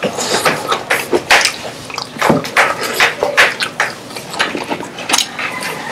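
Close-up chewing of crispy fried chicken: irregular crunches and wet mouth sounds, a few a second.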